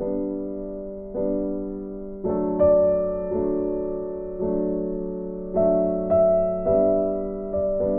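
Background piano music: slow, soft chords struck about once a second, each left to ring and fade.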